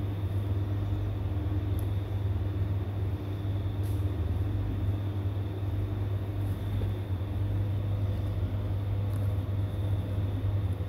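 Steady low hum with a faint high whine over it.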